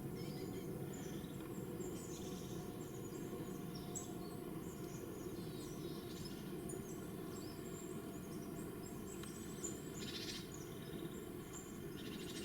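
Small forest songbirds, tits among them, calling: many short, thin, high chirps scattered throughout, fairly faint over a low steady background hiss.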